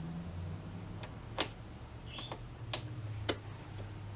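A handful of sharp clicks from a tube tester's controls being worked, over a steady low hum, while a 12BA6 tube is tested and reads nothing: the tube is bad.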